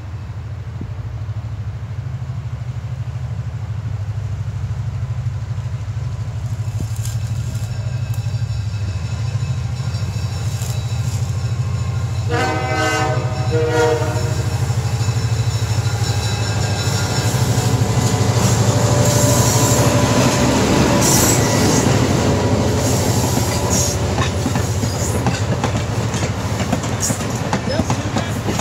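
Excursion train with an EMD SW9 diesel switcher approaching and passing. The engine's low hum builds steadily, the horn sounds in a few short blasts about twelve seconds in, and from about eighteen seconds the passenger coaches roll past with louder wheel rumble and clatter.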